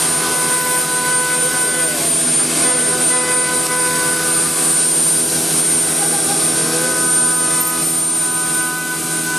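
Woodworking machinery running steadily: a dense, even machine noise with several held tones, some dropping out and coming back every couple of seconds.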